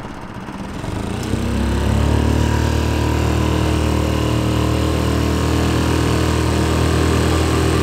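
Mercury 3.5 HP four-stroke outboard motor throttled up to full speed, getting louder over the first two seconds and then running steadily at high revs.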